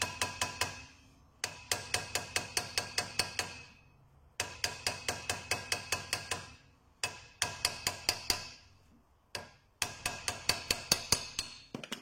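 Hammer tapping the side of a seized rear brake drum to knock it loose: quick light blows, about five a second, in runs of about two seconds with short pauses between, each blow leaving a metallic ring.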